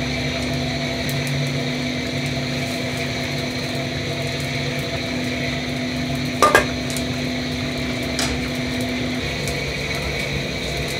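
Steady hum of a busy restaurant kitchen with gas burners lit and pots steaming. A sharp double clank of metal utensils comes about six and a half seconds in, and a fainter clink a little later.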